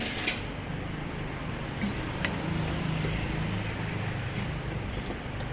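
Light metallic clicks and clinks of hand tools and fork parts being handled during front fork work, over a low steady hum.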